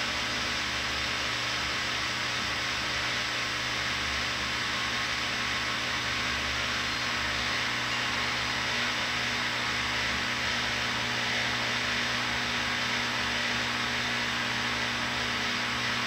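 Front-loading washing machine running with the drum still: a steady hiss over a low hum, cutting off suddenly right at the end.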